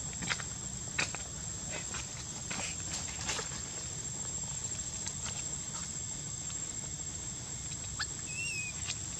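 Outdoor ambience: a steady high thin whine with a low hum beneath, scattered small clicks and rustles throughout, and a brief wavering chirp near the end.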